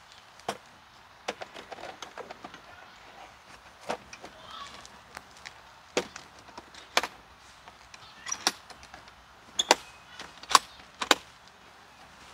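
Irregular sharp clicks and knocks of equipment being handled at a scooter, spread unevenly, with a quick run of louder ones near the end.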